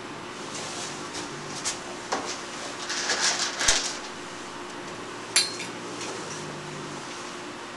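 Clinks and scrapes of a cat's food dish and food being handled inside a wire crate, clattering most around the middle with a sharp knock, then one ringing metallic clink about five seconds in.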